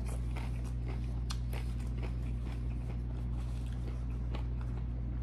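Close-miked chewing: soft, irregular mouth clicks of someone eating with the lips closed, over a steady low hum.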